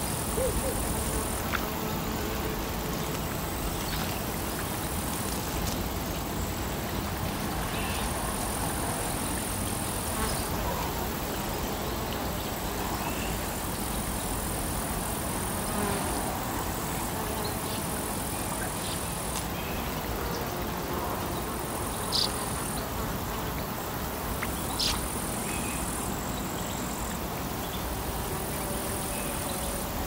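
Outdoor morning ambience: a steady low rumble of distant traffic under a high insect buzz that starts and stops every couple of seconds. A few short bird chirps stand out in the second half.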